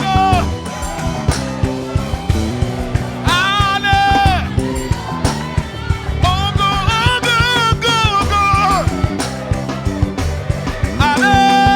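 Live gospel praise band playing an upbeat groove with drum kit and bass. Held sung phrases with vibrato rise over it about three seconds in, again from about six to nine seconds, and near the end.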